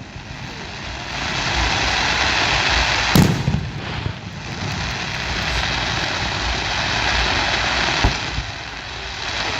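Fireworks display: a dense, steady crackle of many small reports, with two sharp bangs, about three seconds in and again near the end.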